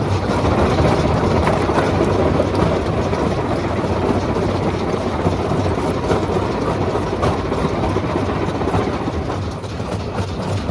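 Stone-crushing machine running, a steady low hum under a dense, continuous clatter of rock being broken.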